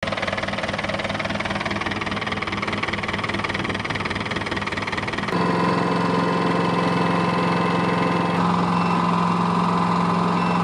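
Boat engine idling steadily while hydrogen is fed into it to burn off combustion-chamber carbon. About five seconds in, a louder steady hum with a high whining tone comes in over it.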